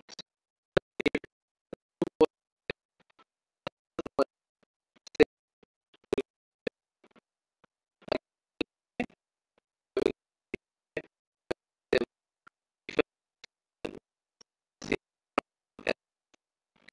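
Computer keyboard keystrokes and mouse clicks: short, sharp, irregular clicks, one or two a second, with quiet gaps between them.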